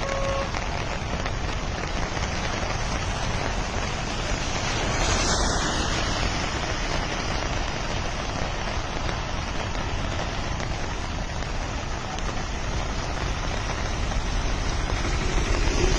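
Steady, unbroken rush of water, loud and even throughout, typical of heavy rain or fast-flowing floodwater.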